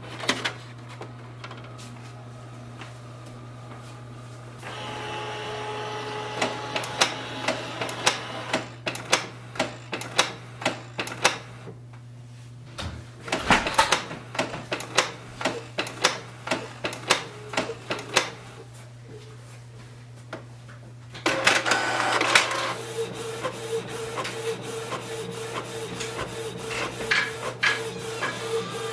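Canon Pixma TS3720 inkjet printer making a copy, its first job after setup. Its mechanism whirs and clicks rapidly over a steady low hum, grows louder about two-thirds of the way through, and settles into a steady whine as the printed page feeds out.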